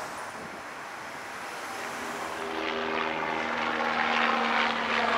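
An engine droning with a steady hum, coming in about two seconds in and growing louder toward the end.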